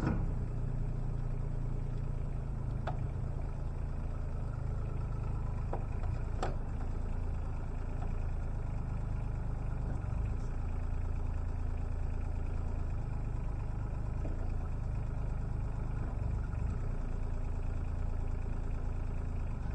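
Diesel engine of a 2016 Bobcat E17 mini excavator catching right at the start, then idling steadily with no revving. A few light clicks and knocks are heard around three and six seconds in.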